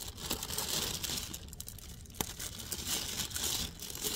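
Plastic bag crinkling and rustling as it is handled, with a single sharp click about two seconds in.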